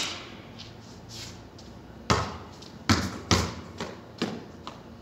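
A basketball bouncing on a concrete court. One sharp bounce comes right at the start, then a run of about six dribbles from about two seconds in, the last few weaker.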